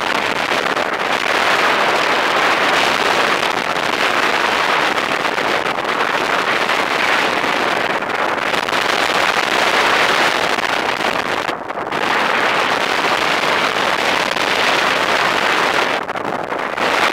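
Wind rushing over the microphone of a camera carried in paragliding flight: a loud, unsteady rush of air noise with no engine tone. It dips briefly about twelve seconds in and again near the end.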